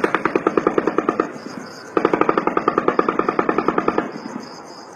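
Long bursts of rapid rifle fire, about nine or ten shots a second, from semi-automatic rifles bump-fired to shoot like machine guns. One burst runs through the first second, breaks off briefly, then a second burst of about two seconds follows before the firing stops.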